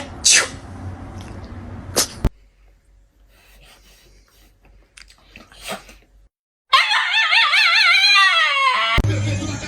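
A dog howls with a wavering pitch for about two seconds, sliding downward at the end. Before it there are a few short sharp noises, then a quiet stretch.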